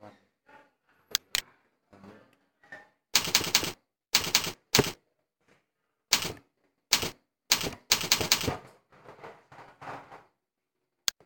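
Computer keyboard keys being typed in quick clusters, entering a file name. There are a few separate sharp single clicks near the start and near the end.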